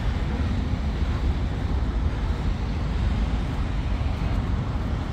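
Wind buffeting the phone's microphone: a steady, low, choppy rumble.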